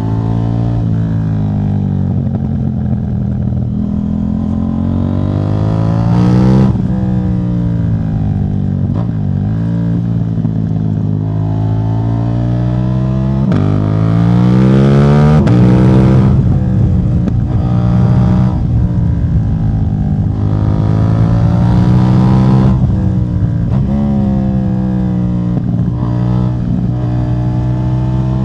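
KTM 790 Duke's 799 cc parallel-twin engine running with its catalytic converter removed (decat exhaust). The engine note climbs and falls several times, with a sudden drop a few seconds in and the loudest, highest revs about halfway through.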